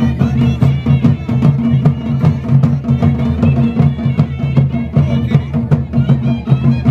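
Himachali folk band playing nati dance music: a reed pipe carries a wavering melody over a low drone and a steady beat of dhol-type drums.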